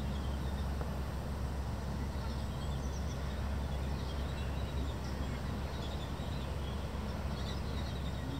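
A steady low rumble with faint high chirps scattered over it, from common kestrel chicks calling as the female feeds them.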